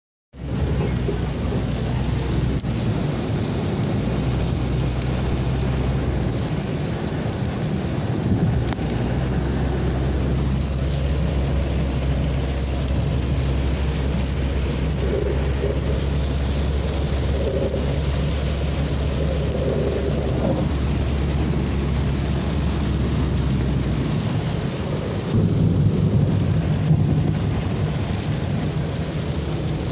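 Rain heard from inside a car's cabin over a steady low rumble of the car on the road; the rumble shifts about 24 seconds in.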